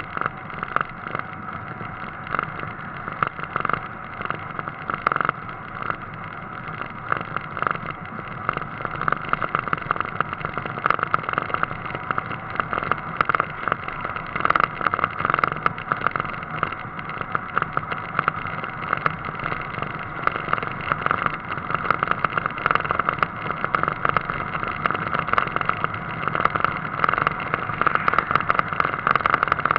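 Car driving along a road, heard from a camera mounted on the outside of its front wing: steady engine and road noise mixed with constant wind buffeting and crackling on the microphone.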